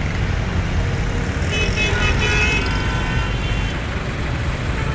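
Road traffic: a steady rumble of engines and tyres, with a vehicle horn honking from about one and a half seconds in for a second or two.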